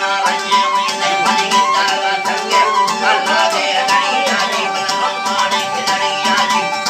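Traditional folk music: a stepping melody over steady held drone tones, with a rhythm of sharp clicks.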